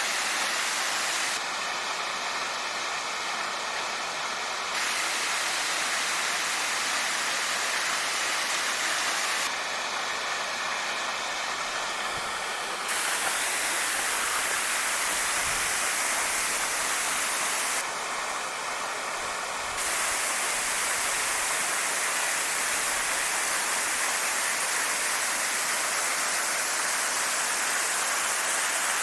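Steady rushing of a waterfall. Three times the rush turns briefly quieter and duller, with a faint steady high whine over it.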